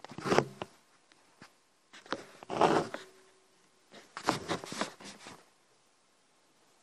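Pen writing on paper: three short bursts of scratching strokes with quiet pauses between.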